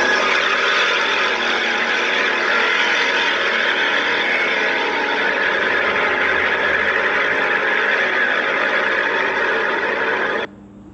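A recording played back through a phone voice-changer app's haunting-ghost effect: a dense, distorted sound at a steady level that cuts off suddenly near the end.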